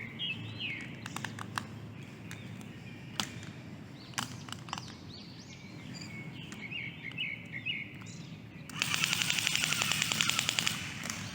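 Small birds chirping in short calls, with scattered sharp clicks. About three-quarters of the way in comes a louder, dense, rapid rattling that lasts about two seconds.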